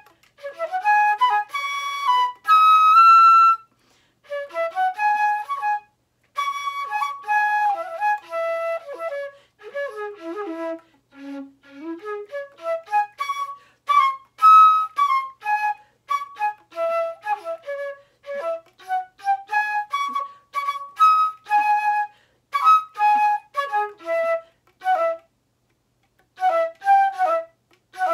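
Concert flute played solo in quick runs of short notes, phrase after phrase with short breaks, the longest about a second near the end. About ten seconds in, one run descends to the flute's low register and climbs back up.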